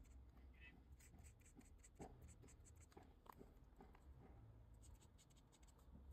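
Faint scratching of a felt-tip marker nib on sketchbook paper, a quick run of short back-and-forth colouring strokes.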